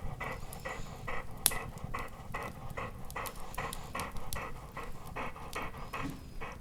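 A dog panting in a quick, even rhythm of about three breaths a second.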